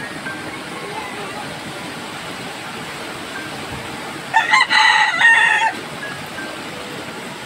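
A rooster crows once, about halfway through, in a loud call lasting about a second and a half. Behind it is the steady rush of storm wind and fast-flowing floodwater.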